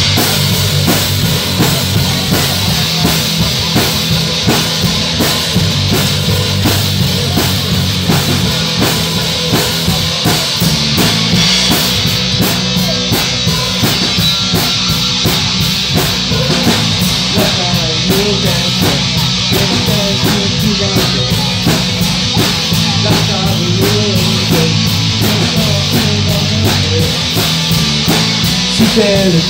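Live rock band playing loud: a drum kit keeps a steady beat under electric guitars and sustained low bass notes, with a sliding melody line coming in about halfway through.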